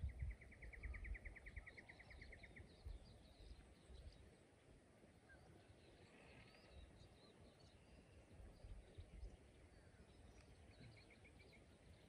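Faint dawn birdsong in Australian eucalypt bushland: one bird gives a rapid, even trill of about nine notes a second for the first two and a half seconds and a shorter trill near the end, while other birds chirp thinly in the distance. A low rumble, likely wind on the microphone, runs underneath.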